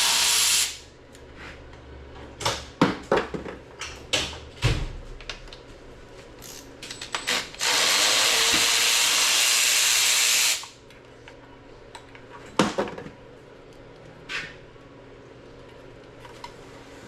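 A power tool running in two long bursts, the second about three seconds long, with sharp metal clinks and knocks of parts being handled between them, during the teardown of an LS engine block.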